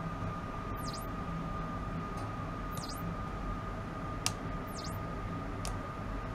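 Steady electrical hum and hiss from laboratory electronic equipment, with a thin steady whine. A faint high chirp dips and rises about every two seconds, and there is a single sharp click about four seconds in.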